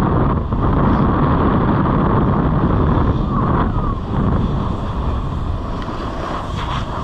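Snowboard sliding and carving over packed snow, a steady rushing scrape, with wind buffeting the microphone from the speed of the ride.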